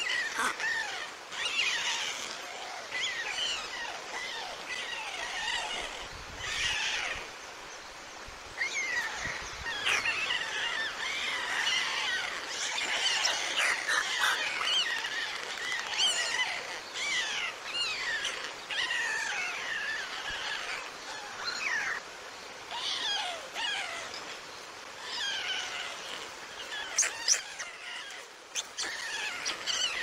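White stork chicks calling: a continuous chatter of high, squeaky chirps, many short notes rising and falling and overlapping. A few sharp clicks come about three seconds before the end.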